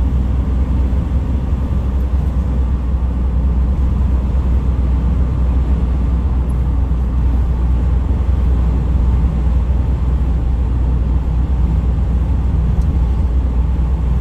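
Steady low rumble of road, tyre and engine noise inside a van's cabin while it cruises at motorway speed.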